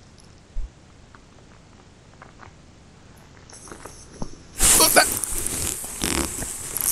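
A few faint handling ticks, then, about four and a half seconds in, loud uneven rustling and knocking of jacket and gear against the chest-worn camera as the ice-fishing rod is lifted high.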